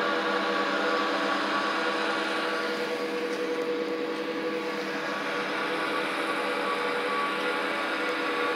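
Crane engine running with a steady drone and a faint constant whine over it.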